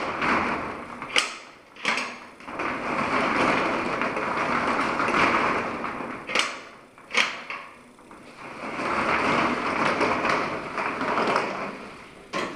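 Roll-up door running along its tracks three times, each run a long rolling rattle. Sharp clicks and clunks come between the runs as the door is shut and opened and its slide latch meets the strike plate.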